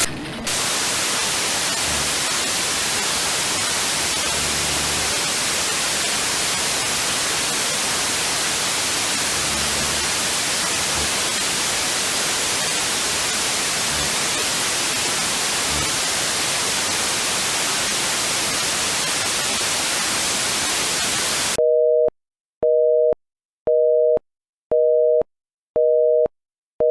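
Steady hiss of static that cuts off abruptly near the end, followed by a telephone busy signal: a two-tone beep pulsing about once a second.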